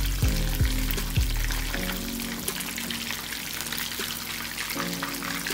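Fish steaks deep-frying in hot oil, a steady crackling sizzle, under background music with held notes and a few falling bass sweeps in the first second or so.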